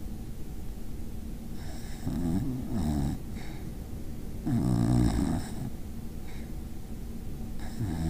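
A basenji dog snoring in its sleep: three snores a couple of seconds apart, the middle one loudest.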